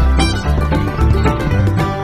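Upbeat background music with banjo-like plucked strings and a steady bass beat.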